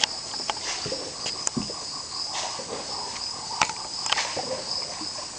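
Steady, high-pitched chorus of rainforest insects, with a few sharp clicks scattered through it.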